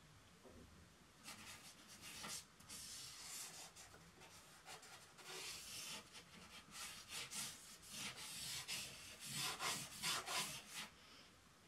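A drawing tool scratching and rubbing across paper in a quick run of short strokes, beginning about a second in and growing louder near the end.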